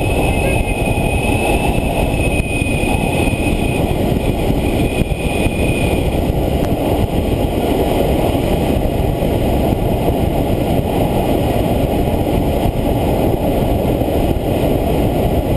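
Steady loud rush of air streaming past a glider's cockpit canopy in flight. A thin high steady tone runs alongside it for about the first six seconds, then stops.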